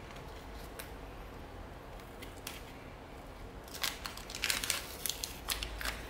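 Foil wrapper of a Panini football sticker packet crinkling and tearing as it is ripped open by hand: faint handling at first, then a quick run of sharp crackles from a little past halfway.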